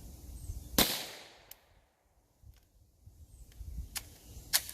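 A single 9mm pistol shot through a Delta Tech muzzle device with Federal Syntech 150 grain subsonic ammunition, a sharp report with a fading echo; the round fails to cycle the action. A sharp short click follows near the end.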